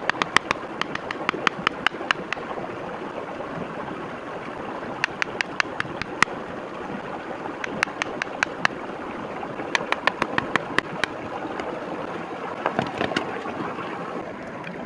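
Bursts of sharp clicking taps, about five a second, in several runs separated by pauses, over a steady rushing background noise.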